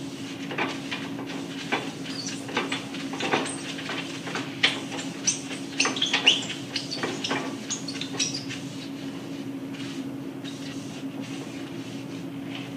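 Paper towel wiping and rubbing over the blanket cylinder of a small offset press, heard as irregular scrapes, rustles and light knocks, over a steady machine hum.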